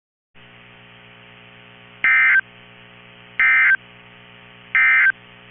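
Three short bursts of NOAA Weather Radio SAME digital data tones, about a second and a half apart, over a steady low hum that starts just before them: the end-of-message code that closes the weekly test broadcast.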